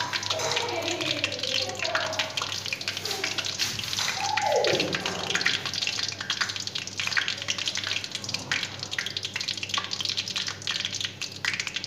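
Hot oil crackling and spitting in a metal kadai on the stove, a steady hiss dotted with many small quick pops.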